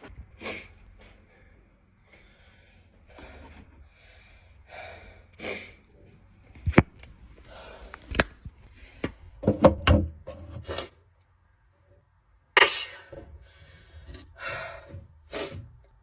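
A person's sharp gasping intakes of breath, several of them, with a couple of short clicks or knocks in between; the loudest gasp comes near the end.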